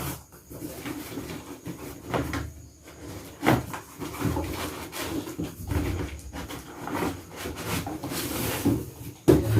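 Cardboard boxes and packaging being handled and opened: irregular rustling scrapes and light knocks.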